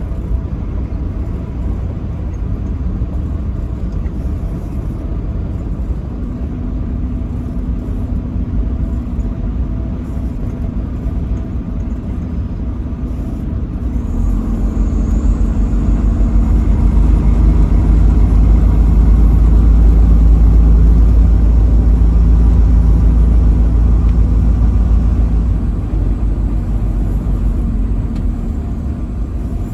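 Truck driving on the road: steady engine and road rumble. From about halfway through it grows louder for some ten seconds, with low engine tones showing, then settles back.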